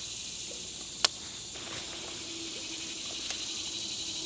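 Steady high-pitched insect chorus, with one sharp click about a second in and a fainter one near the end.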